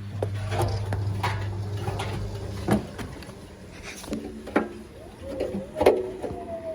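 Siemens Siwamat XB1260 front-loading washing machine changing over from the end of its intermediate spin to the first rinse. A steady low hum stops with a knock nearly three seconds in, followed by scattered clicks and knocks and a short falling tone near the end.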